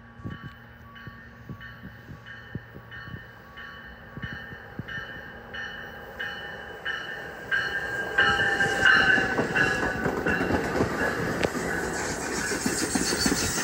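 An NJ Transit train arrives. A bell rings about twice a second and grows louder as the train approaches. From about eight seconds in, the train's wheels and cars rumble past loudly, with some wheel squeal.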